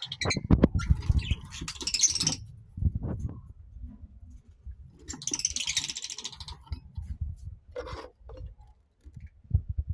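Lovebirds chattering in two bursts of high-pitched calls, about a second in and about five seconds in, with a shorter call near the end. Low knocks and thumps run underneath.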